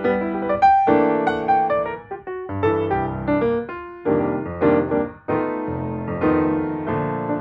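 Background piano music: a keyboard tune of separate notes and chords.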